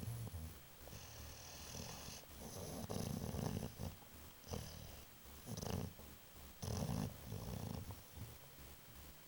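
Great Dane snoring in its sleep: a run of rough snoring breaths about every second or so, with a hissing note between some of them.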